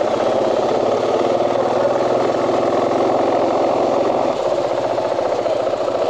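KTM 500 single-cylinder four-stroke dirt bike engine running at low speed as the motorcycle rolls slowly along a street; the engine note eases off a little about four seconds in.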